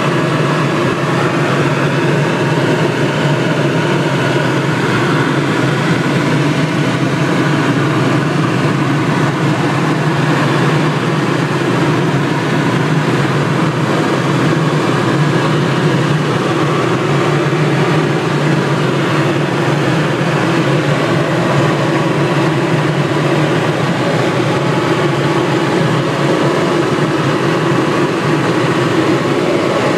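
Helicopter in flight heard from inside the cabin: loud, steady engine and rotor noise that does not change.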